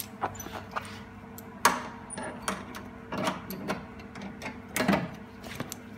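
Sharp metallic clicks and knocks of steel locking pliers being handled and repositioned on a car's replacement rear quarter panel flange. The loudest is a clack about one and a half seconds in. A steady low hum runs underneath.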